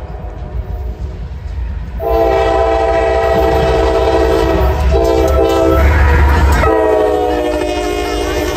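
Norfolk Southern diesel freight locomotives sounding a multi-note air horn, faint at first and then loud from about two seconds in, in long blasts with two short breaks, over the low rumble of the passing engines.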